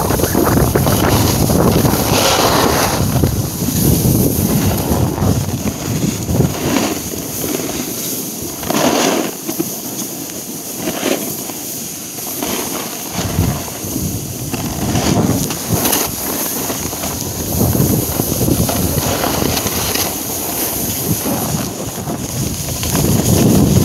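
Wind buffeting a phone's microphone: a loud, gusty rumbling rush. It eases off for a few seconds midway, then comes back.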